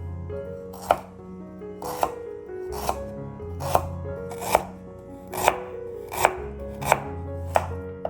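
Knife chopping on a cutting board: about nine even strokes, a little under a second apart, over background music.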